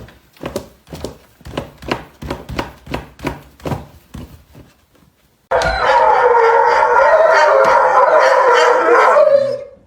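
A dog making short repeated sounds, about three a second and fading away, then a long wavering dog howl that starts suddenly about halfway through and lasts about four seconds.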